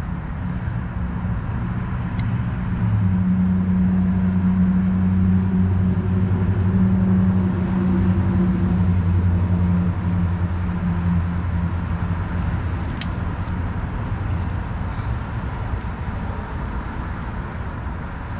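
A vehicle engine running with a steady low hum, growing louder about three seconds in and easing off after about twelve seconds. A few light clicks from brake pad clips being handled.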